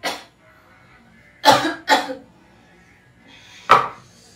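A woman coughing in short harsh fits: one cough at the start, a quick double cough about a second and a half in, and another cough near the end.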